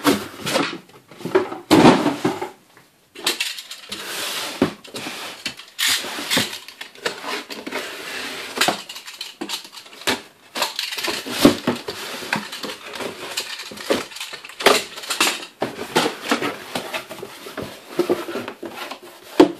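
Cardboard shipping boxes being handled and opened: flaps folded and slapped, boxes shoved across a table, and the packing tape pulled off a sealed box, making a run of irregular knocks, scrapes and rustles.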